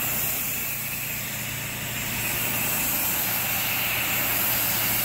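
Spray gun on a low-pressure, high-volume rinse, water hissing steadily as the spray hits a stucco wall, with an engine running steadily underneath.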